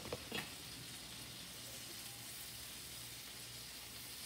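Pancake batter frying in a hot pan, a faint steady sizzle with a low hum beneath it. There are a couple of light knocks right at the start.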